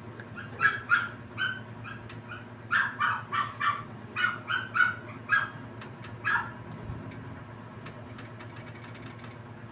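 Small dog barking in a rapid run of short, high yips that stops about six seconds in.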